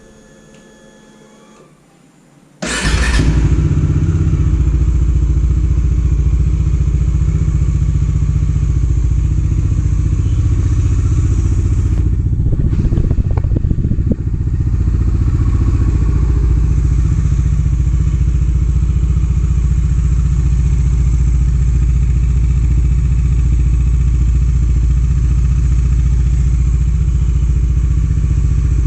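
Bajaj Dominar 400's single-cylinder engine fires up suddenly about three seconds in and settles into a steady idle. It runs without the head noise it had, its failed timing chain tensioner having just been set.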